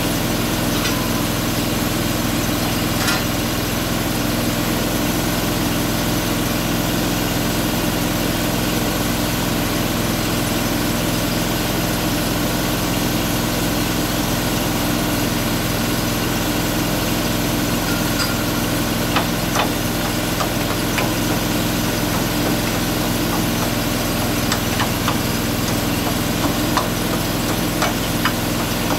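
An engine running steadily at idle without change, with a few sharp ticks in the last ten seconds.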